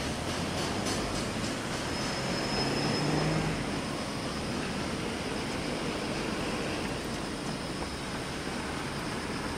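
A container freight train's wagons running away into a tunnel, a steady rumble with faint wheel clicks in the first second. A short high-pitched tone comes about two to three seconds in.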